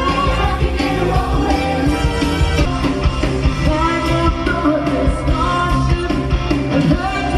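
Live stage-show song: a singer's held, gliding notes over backing music with a steady beat, recorded from the theater audience.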